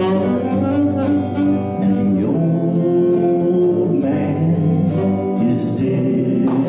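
Live gospel praise music: electric guitar and saxophone, with a man singing, and the saxophone holding long notes.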